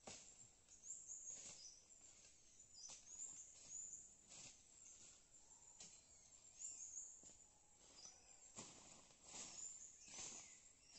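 Faint, irregular swishes and snaps of plants being cut and cleared by hand, about one stroke a second, with high bird chirps throughout.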